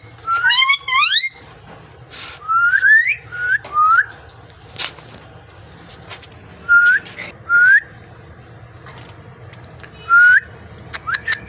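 Parrot whistling: short upward-gliding whistled notes, some in quick runs of three or four, with pauses of a second or more between groups.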